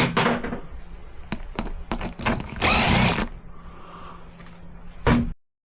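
Power drill-driver run in short bursts, with clicks and knocks of hardware, while a tail light and turn signals are bolted onto a motorcycle tail section. It cuts off suddenly near the end.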